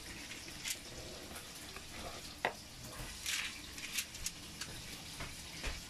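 Faint, scattered crinkling and rustling of aluminium foil and food being handled as a whole fish is stuffed with cooked okra filling, with one sharper click about two and a half seconds in.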